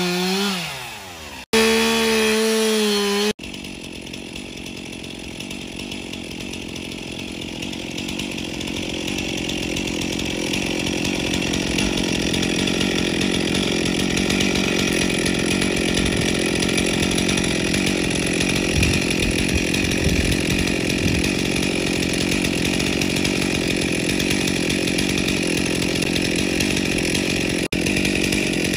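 Gas chainsaw running at high revs for the first few seconds, then cutting into a rotted, hollow tree stump. The cutting is a rough, steady running that builds in level over the first several seconds.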